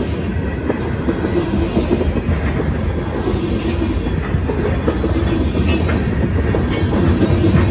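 Covered hopper cars of a grain train rolling past at close range: a steady, loud rumble with wheels clicking over the rails.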